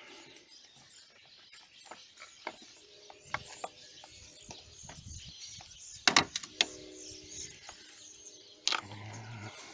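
A few sharp metallic clicks and clinks, the loudest about six seconds in, from a socket and extension bumping the engine and surrounding metal as the tool is worked off a freshly tightened oil pressure sensor.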